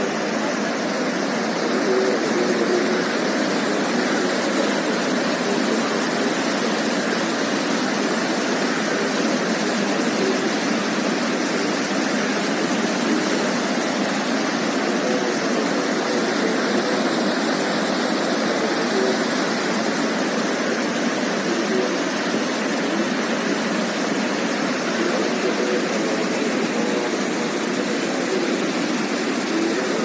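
Whitewater mountain river rushing over boulders: a steady, unbroken noise.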